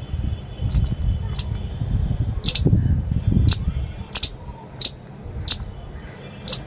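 Palm squirrel eating paddy grains: short, crisp clicks of grain cracking, roughly one every half second to second, over a low rumble.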